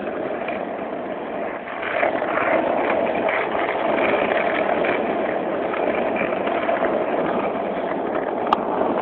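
Skateboard wheels rolling fast down an asphalt street: a steady rolling noise that grows louder about two seconds in, with one sharp click near the end.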